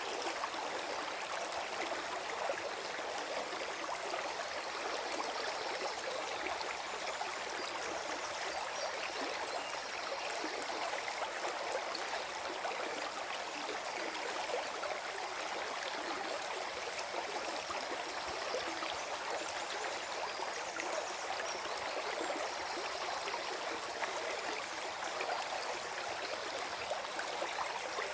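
Small forest stream running and gurgling over stones, a steady, even flow of water.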